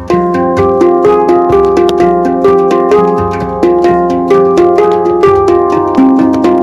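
Instrumental music: a melody of pitched notes over a steady beat, with regular struck note attacks about three or four times a second.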